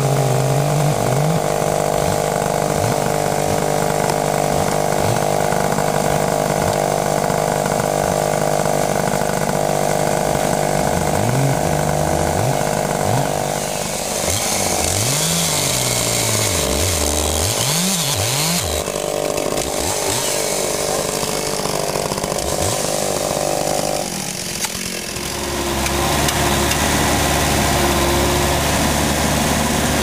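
Gas chainsaw running and cutting into a large log, revving up and down repeatedly. About 25 seconds in it gives way to a backhoe engine running at a steady idle.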